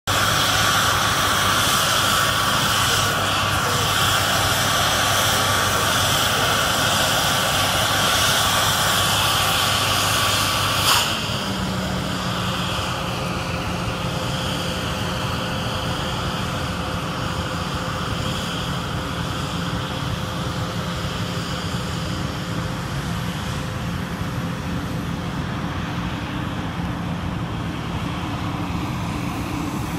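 Steady high whine of jet aircraft engines on an airport apron. About 11 seconds in there is a click and the whine drops away, leaving a lower steady engine hum.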